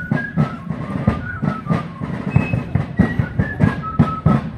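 Fife and drum corps playing a march: fifes carry a high melody over drums beating a steady cadence, about three strokes a second.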